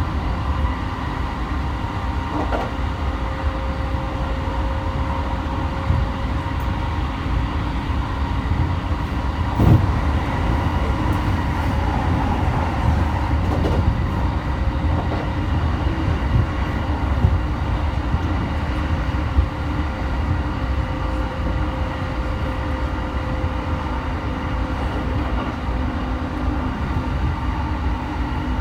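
Running noise inside an E217 series commuter train car: a steady low rumble of wheels on rail with a constant hum, and a few sharp clacks as the wheels cross rail joints.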